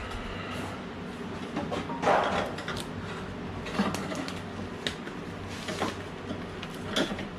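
Hands handling small engine parts and tools: scattered clicks, knocks and scuffs a second or so apart, over a steady low hum.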